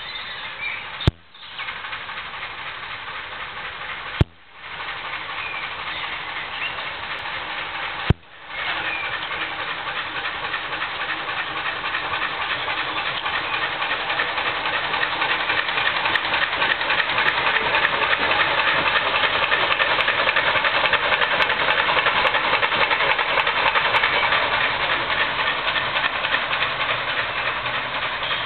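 Ruston & Hornsby 0-6-0 diesel-hydraulic shunting locomotive's engine running as it reverses along the yard, growing louder as it draws near and loudest past the middle. Three sharp clicks, each followed by a brief cut in the sound, come in the first eight seconds.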